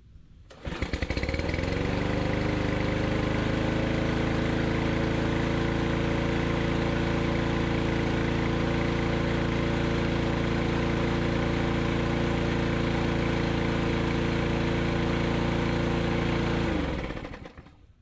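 Craftsman M230 push mower's 163cc Briggs & Stratton engine starting about half a second in, revving up to a steady run, then shut off near the end and winding down to a stop. It starts and runs steadily on its newly replaced carburetor, curing the won't-start problem.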